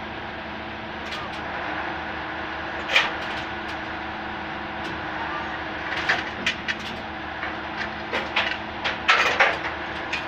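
Engine of track-repair machinery running steadily, with a series of sharp knocks and clanks from the rail dismantling work: a loud single knock about three seconds in, then a quickening run of them in the second half, the loudest near the end.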